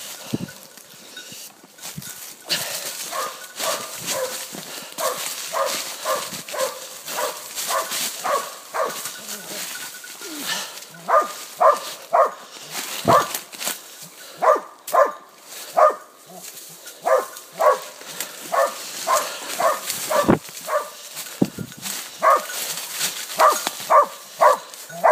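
Hunting dog barking over and over at about two barks a second, louder from about halfway through. Under it is a steady rustle of leaves and brush from someone moving quickly through the undergrowth.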